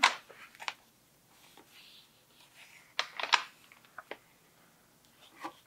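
Paper notebook pages being turned by hand: a few short, crisp rustles and flicks of paper, the loudest cluster about three seconds in.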